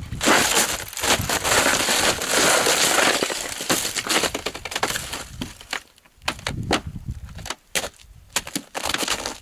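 Ice crunching and cracking: a dense crackling crunch for the first few seconds, then sparser sharp cracks and clicks.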